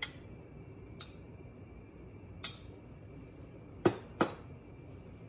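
Dishes and utensils clinking as they are handled on the kitchen counter: five short sharp clinks, the two loudest close together near the end.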